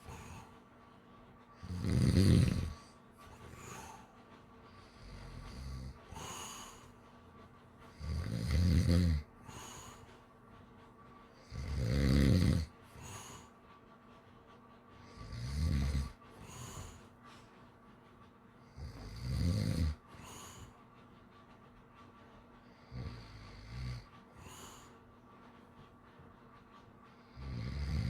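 Snoring: a loud, low snore every three to four seconds, each followed by a softer breath.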